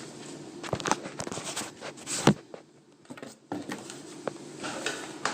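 Scattered knocks and bumps of a person moving about and climbing down out of an attic, with one louder thud about two seconds in, over a steady low hum.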